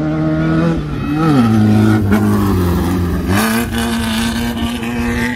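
Volkswagen-engined race buggy running hard on a dirt track. The engine note drops about a second in, holds lower, then climbs sharply again a little after three seconds in.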